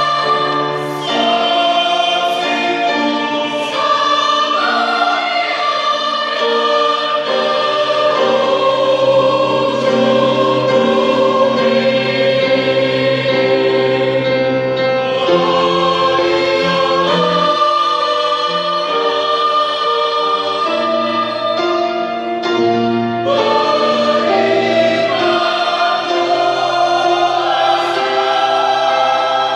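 Combined church choir singing a sacred anthem in several parts, holding long chords that shift every second or two.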